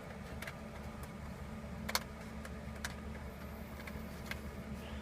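Scattered light clicks and taps of a small Torx bit set and screwdriver being handled, the sharpest about two seconds in, over a steady low hum.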